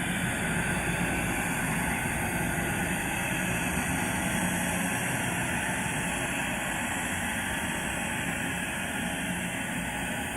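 Haunted-forest horror sound effect: a steady, noisy drone like rumbling wind, with a low hum underneath and no distinct cries or hits.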